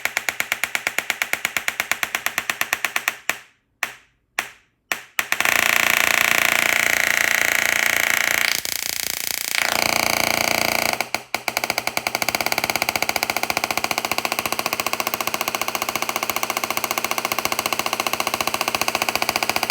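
Mini dual-resonant Class-E solid-state Tesla coil throwing arcs: a harsh, fast buzz pulsed by its interrupter. It cuts out briefly a few times about three to five seconds in, runs unbroken for about six seconds, then goes back to the fast pulsed buzz.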